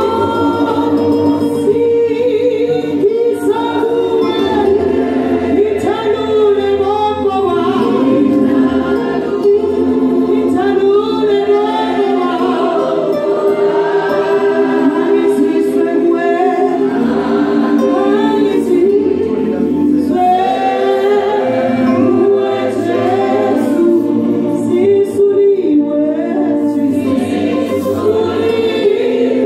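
Choir singing a gospel song in harmony, with keyboard accompaniment.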